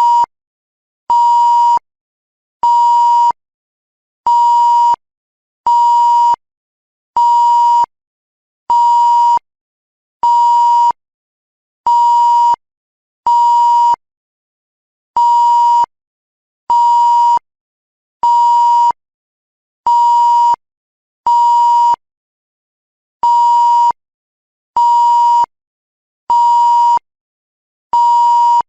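TV-style censor bleep: a single steady high beep under a second long, repeated about every one and a half seconds with silence between.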